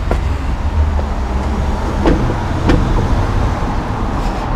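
Steady low rumble of nearby road traffic, with a couple of faint knocks about two seconds in.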